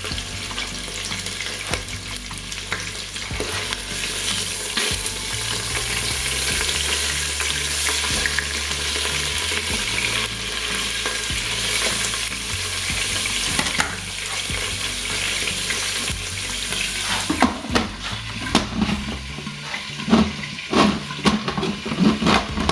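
Steak searing in hot oil in the pot of an electric pressure cooker on its sear/sauté setting: a steady sizzle. Near the end comes a run of sharp knocks and clicks.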